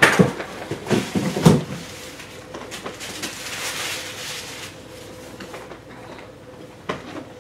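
Cardboard being handled: several sharp knocks and scrapes in the first second and a half as the shipping box's flaps are pushed aside, then a longer rustling slide as a boxed figure is drawn out of the carton, and a single knock near the end.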